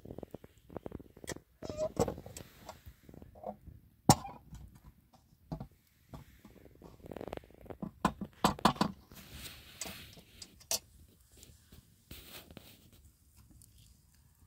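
Cooking clatter of a metal spatula and bowls around a flatbread griddle: irregular knocks, clicks and short scrapes, the sharpest about four seconds in and a quick run of them around eight to nine seconds.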